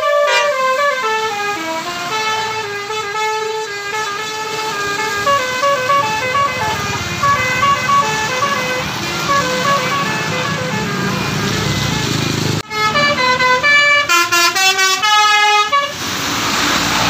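Bus 'telolet' multi-tone musical horn playing a tune of stepping notes over the bus engine's low running. After a sharp break about 13 seconds in, a faster run of horn notes follows, then a hiss of noise near the end.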